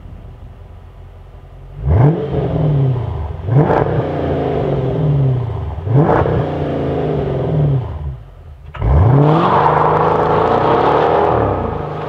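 Dodge Challenger R/T's 5.7-litre Hemi V8 through a Martelius cat-back exhaust: idling, then three quick revs that rise and fall back to idle, then the car pulling away under hard acceleration about nine seconds in.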